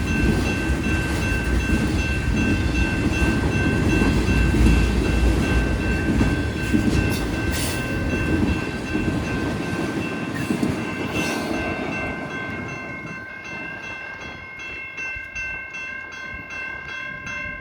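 Freight train rolling past, with a heavy rumble and rattle of the cars over the rails and steady high ringing tones. About two-thirds of the way through it fades, leaving a regular clacking of wheels on rail joints at about two a second.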